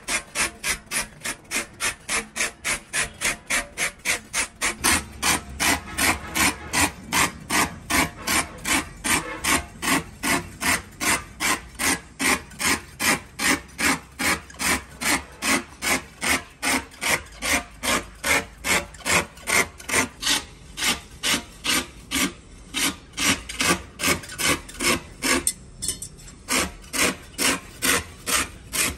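Steady, even back-and-forth scraping of a hand tool worked over a truck tyre, about two strokes a second.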